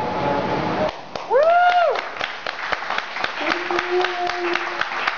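Sustained cello notes stop about a second in, and a small audience breaks into scattered clapping. One listener lets out a whoop that rises and falls, and another voice calls out a held cheer partway through.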